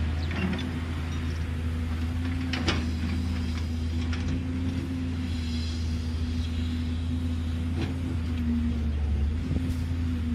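JCB tracked excavator's diesel engine running steadily under load while the boom swings down and the bucket digs into dirt, with a sharp metal clank about a third of the way in and another near the end.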